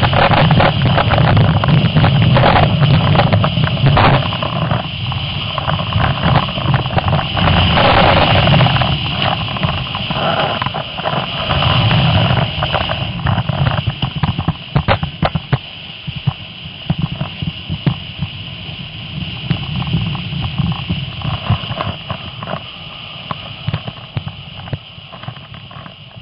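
Snowboard sliding and scraping over packed snow, with a dense run of knocks and chatter from bumps, picked up close by a camera mounted at board level. It is loudest in the first half and fades over the second half.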